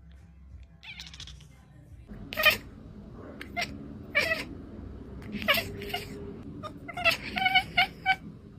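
Kittens meowing: several separate calls starting about two seconds in, then a quick run of meows near the end.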